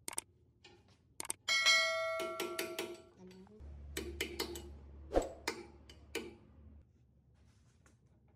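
Metal parts clinking and knocking. About a second and a half in, one piece is struck and rings out for over a second, then scattered taps and clanks follow over a low hum.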